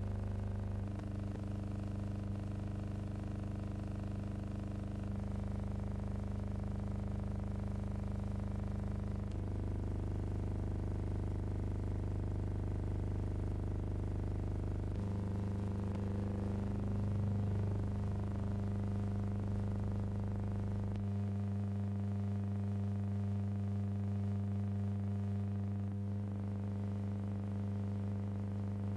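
Steady electrical hum made of a low buzzing tone and its evenly spaced overtones, with no other sound. The film is a 1919 silent newsreel, so this is transfer hum, not recorded sound. The mix of tones shifts slightly a few times.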